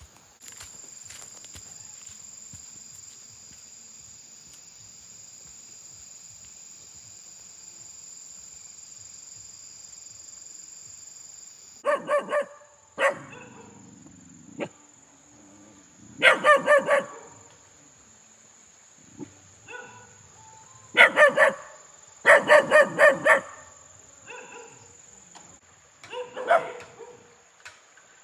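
A dog barking in several bursts of quick, high barks that start about twelve seconds in and recur every few seconds; before the barking, a steady high-pitched whine.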